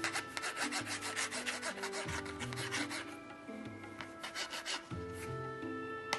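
Quick back-and-forth rubbing strokes, about five or six a second, as a lump of sweet dough is rolled by hand and under a small wooden tray on a plastic cutting board, shaping it into a tapered cone. The strokes ease off after about three seconds, and a sharp tap comes just before the end. Soft background music plays underneath.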